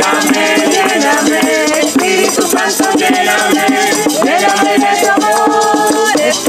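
People singing a chorus together, with a shaker rattling in a steady rhythm.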